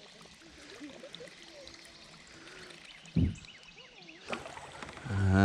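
River water trickling and flowing around a kayak, with faint bird chirps. A short low thump about three seconds in, and near the end a loud drawn-out human vocal sound, falling in pitch.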